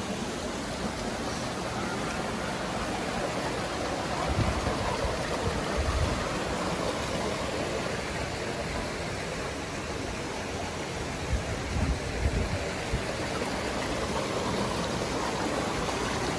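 Creek water rushing and splashing over boulders below a waterfall: a steady, even wash of water noise. A few dull low bumps come about a third of the way in and again about three quarters through.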